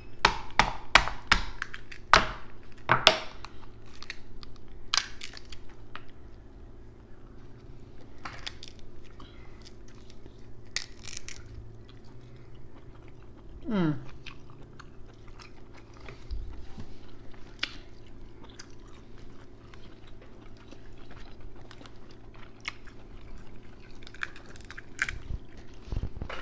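King crab leg shells cracking and snapping by hand, with chewing close to the microphone. A quick run of sharp cracks comes in the first three seconds, then scattered softer cracks and chewing.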